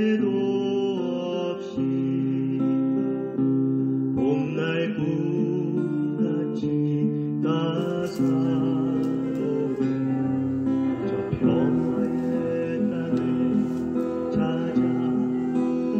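Music: a sung melody with acoustic guitar accompaniment, held notes with vibrato over steady low chords, changing in character about halfway through.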